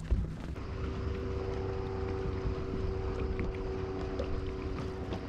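A boat's motor running with a steady hum of several even tones that set in about a second in, over a low rumble of wind on the microphone.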